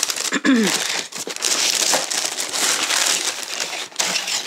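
Tissue paper rustling and crinkling as it is pulled back and folded open inside a cardboard shoebox, with a short falling tone about half a second in.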